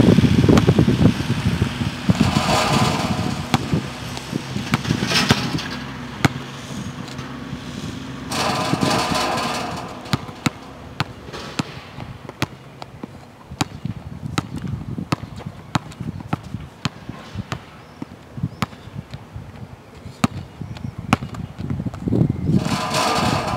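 A basketball bouncing again and again on a hard outdoor court as it is dribbled and shot, a run of sharp, irregular thuds that comes thickest during the dribbling in the second half. A few louder stretches of rushing noise rise and fade in between.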